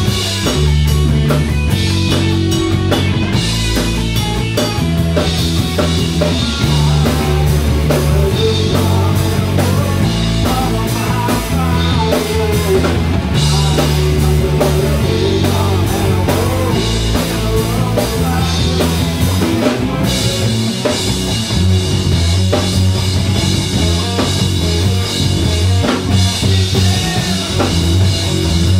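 A live rock band playing together: a drum kit, bass guitar and electric guitar. The bass line moves in long low notes under the drums, and the cymbals wash brighter and steadier about two-thirds of the way through.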